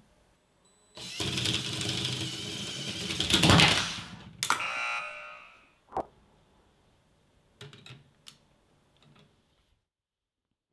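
A motorised LEGO train's motor running and its plastic wheels and parts rattling on a 30-degree LEGO track for about three seconds, then a clatter as the train comes off the track. A few scattered knocks of plastic pieces follow.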